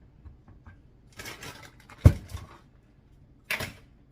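Kitchen handling noises while measuring out brown sugar: a short rustling scoop, then a sharp knock about two seconds in, the loudest sound, with a couple of small clicks after it, and another brief rustling scrape near the end.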